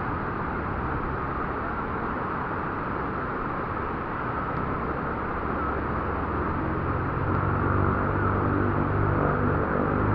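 Waterfall: the steady rush of falling water. In the last few seconds a low, pitched sound with several steady tones joins in.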